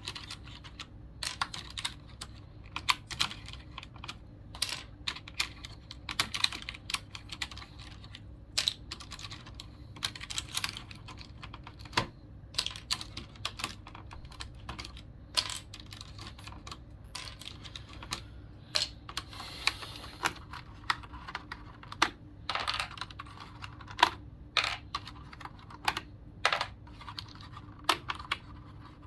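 Irregular plastic clicks and clacks from a Logitech G710+ mechanical keyboard being handled during cleaning: keys and keycaps knocking, with a few short rustling noises among them.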